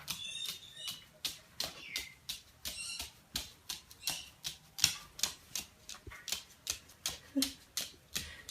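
Pet bird making a run of sharp clicking taps, two to three a second, with a few short high chirps in among them.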